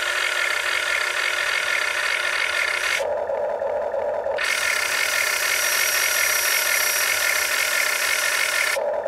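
Huina RC excavator's electric motors whining steadily as the arm and bucket dig into soil. The whine drops briefly to a lower, duller pitch about three seconds in and again near the end.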